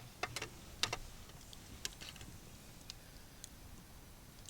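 Scattered light clicks and ticks, several close together in the first second and then a few spaced out, over a faint background.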